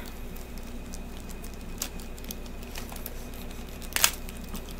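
Plastic packaging being handled and torn open: scattered crinkles and small clicks, with one louder tear about four seconds in.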